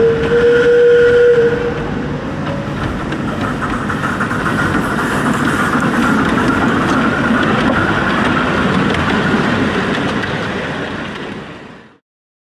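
Miniature live-steam locomotive on a small-gauge track: a steady whistle note sounds for the first second and a half, then the engine runs past with the rattle of its wheels and rods on the rails, fading out near the end.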